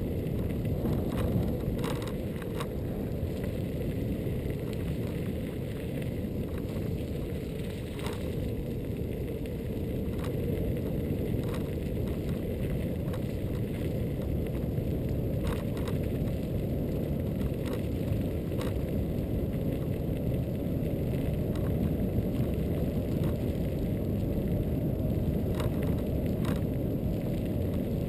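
Xiaomi M365 electric scooter riding along a paved path: a steady low rumble of tyre and wind noise, with scattered light clicks and knocks from bumps in the path.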